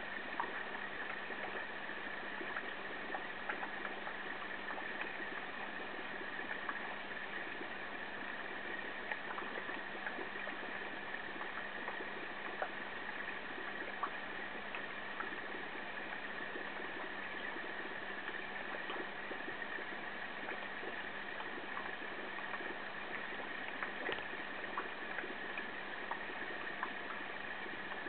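Steady hum and water trickle of running aquarium equipment, with scattered faint pops or ticks.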